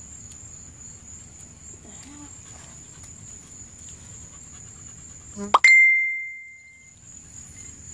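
Crickets chirping steadily. About five and a half seconds in, a sudden loud ringing ding that fades away over about a second.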